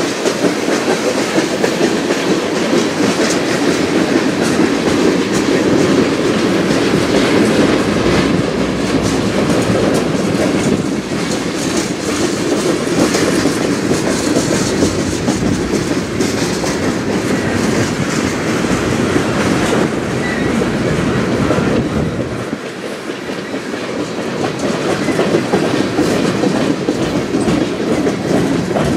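Tank cars of a CN freight train rolling slowly past through a speed restriction: a loud, steady rolling noise of steel wheels on rail, dipping briefly near the end.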